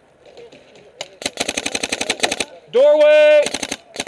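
Paintball marker firing in rapid strings of about ten shots a second. The firing starts about a second in and breaks briefly for a loud shout of "Doorway!" before resuming.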